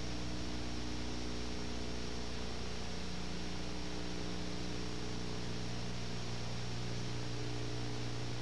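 Steady electrical hum with a constant hiss; nothing else happens.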